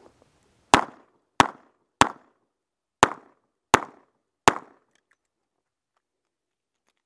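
A revolver fired six times in rapid fire, in two strings of three shots about two-thirds of a second apart with a one-second pause between them.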